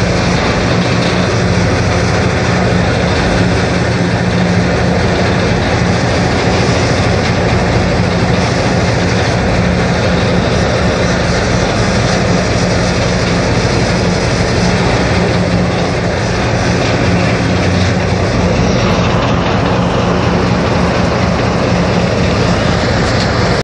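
Cross-river ferry boat's engine running steadily with a low hum, as the boat comes in alongside the pier.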